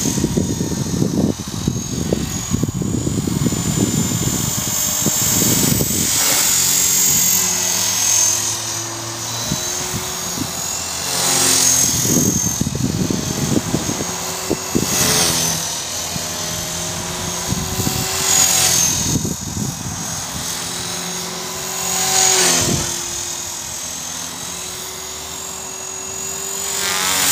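450-size electric RC helicopter (EXI 450 with an EXI 3900 brushless motor) in flight: a steady high motor-and-rotor whine that shifts in pitch, swelling and fading in loudness several times as it manoeuvres.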